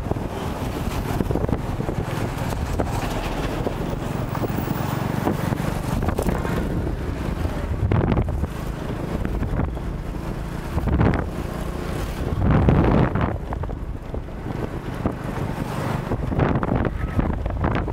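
Wind buffeting the microphone of a moving bike, over steady vehicle and road noise, with two louder swells in the second half.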